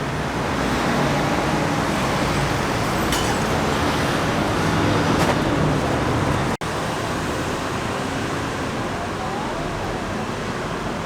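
Steady city street noise with road traffic, cut off for an instant about six and a half seconds in and then running on.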